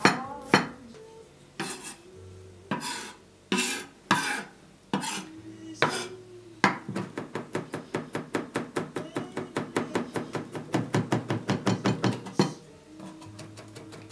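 Chef's knife mincing garlic on a wooden cutting board: separate knocks of the blade about a second apart, then from about halfway a fast, even run of chops, about five a second, that stops shortly before the end.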